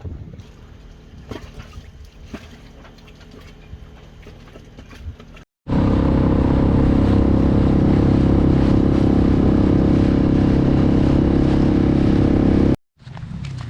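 Wind and water noise with light knocks, then, after an abrupt cut about five and a half seconds in, a motor running loud and steady for about seven seconds before cutting off suddenly.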